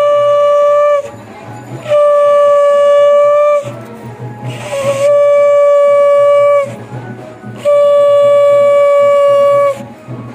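Conch shell (shankha) blown in four long, steady blasts with short gaps between them, each bending slightly down in pitch as it ends: ritual conch blowing at a Hindu puja.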